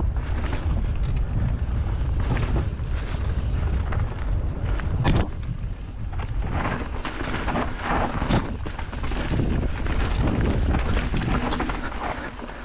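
Canyon Strive enduro mountain bike descending a rough trail: a steady low rumble of wind on the action camera's microphone, with the tyres and bike rattling over stony ground and two sharp knocks, about five and eight seconds in.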